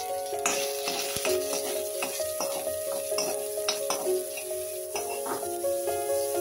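Chopped onion, green chilli and curry leaves sizzling in hot oil in a metal kadai, stirred with a metal spoon that makes repeated scrapes and clinks against the pan.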